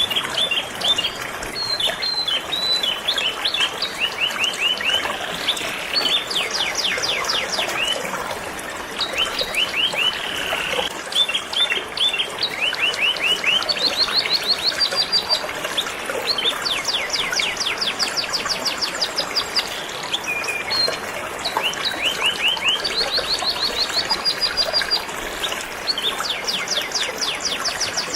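Canary singing continuously in fast trills and rapid runs of repeated notes, over the steady rush of a flowing river.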